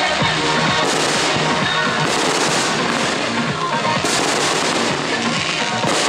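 Aerial fireworks bursting and crackling in quick succession, a dense run of sharp cracks and pops, with music playing loudly alongside.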